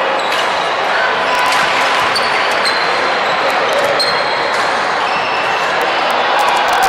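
Badminton play on a wooden court in a large, echoing sports hall: sharp clicks of racket strings striking shuttlecocks, brief squeaks of shoes on the floor, and voices in the background.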